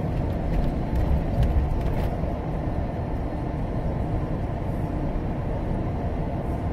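Steady road noise of a car travelling at highway speed: an even low rumble of tyres and engine.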